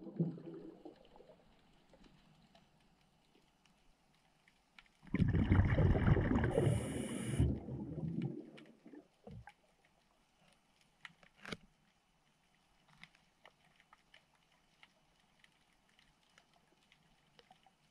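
Underwater recording: a diver's exhaled breath, a rush of bubbles about five seconds in lasting some three seconds. Faint scattered clicks are heard before and after it.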